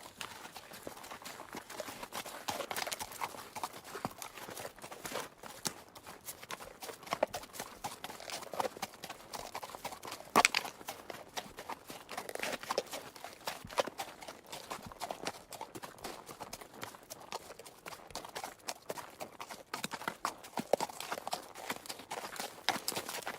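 Horse walking, its hooves clip-clopping on hard ground in an uneven run of sharp knocks.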